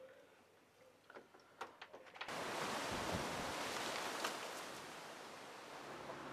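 A few small sharp clicks, then a sudden steady rush of outdoor air and wind noise across the microphone as the front door opens onto the garden, with a dull thump in it.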